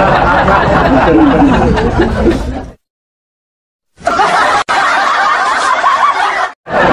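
Chuckling laughter, in two stretches broken by a sudden cut to dead silence of about a second.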